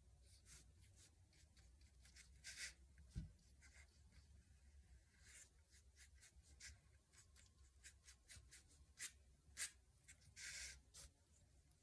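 Faint, irregular swishes and scratches of a round paintbrush stroking paint onto paper, a few strokes louder than the rest. One soft low thump about three seconds in.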